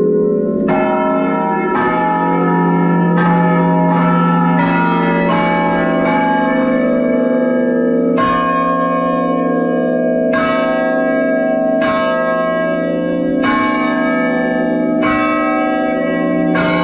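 Tower chime bells played as a slow melody, heard close up inside the belfry. There are about a dozen strikes, one every second or two, each bell ringing on under the next.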